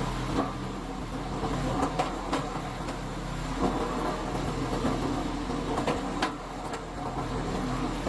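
A machine's engine running steadily, with scattered sharp knocks and clacks over it.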